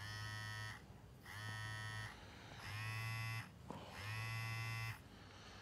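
Mobile phone buzzing with an incoming call: four buzzes of under a second each, evenly spaced.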